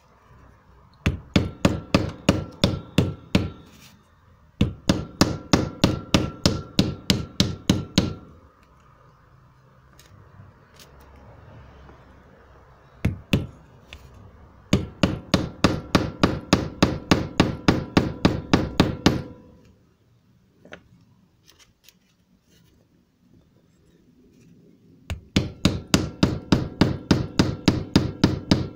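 Hammer blows through a wooden block onto a Suzuki Jimny's viscous fan coupling, knocking to break the seal on the coupling's cover. The blows come in four fast runs of about four a second, with a single blow between, and the metal rings faintly under each run.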